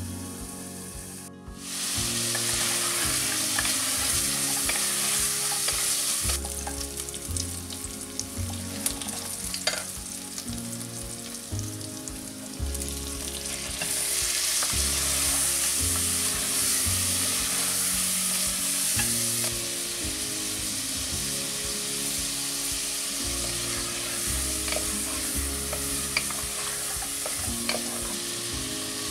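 Meat and chopped tomatoes sizzling as they fry in a pot, stirred with a wooden spoon. The sizzle jumps louder about two seconds in.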